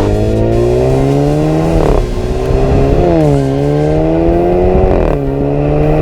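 Alfa Romeo Stelvio with a REMUS cat-back sport exhaust accelerating. The engine note climbs in pitch and drops back sharply at each gear change, several times.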